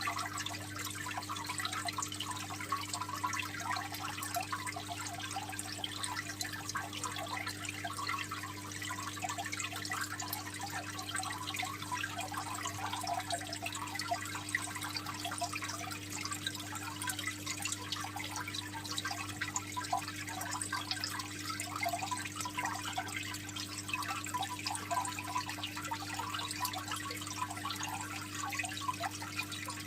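Aquarium water trickling and splashing steadily, a dense patter of small drips over a steady low hum.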